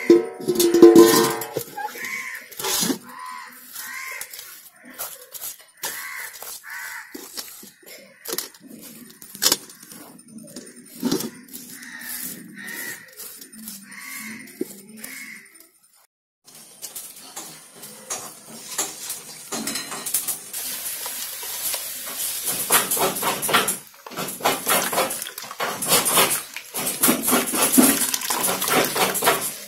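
Ukulele music fades at the start. In the second half, wet pounded herbs are squeezed by hand in a steel bowl of herb juice, making irregular squelching and splashing.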